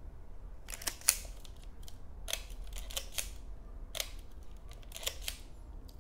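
A series of about eight sharp mechanical clicks, several in close pairs, from a Leica M-A rangefinder being worked by hand: its cloth focal-plane shutter firing and its film advance lever being wound between shots.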